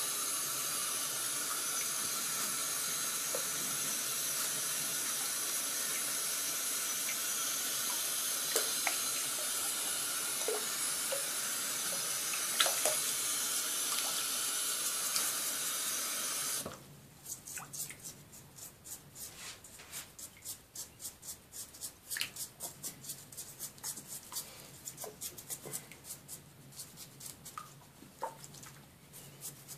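Water running steadily into a shallow basin, shut off suddenly about two-thirds of the way through. After that, small irregular splashes and drips in the shallow water as a hedgehog is scrubbed with a toothbrush.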